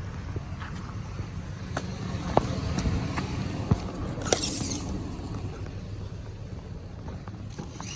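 Steady low rumble of an idling vehicle engine, with a few light clicks and knocks. A short hiss comes about four seconds in.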